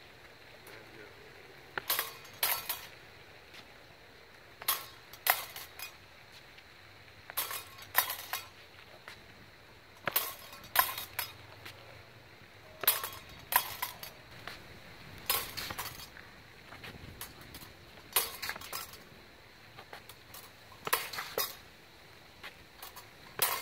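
Rapier blades clashing in pairs, one cut after another parried in second, the two clinks about half a second apart. The pairs repeat about every two and a half to three seconds, some nine times.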